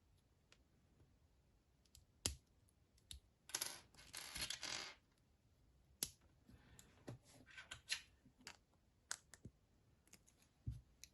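Faint clicks and taps of small plastic Lego minifigure parts being handled, with a short rustle about three and a half seconds in.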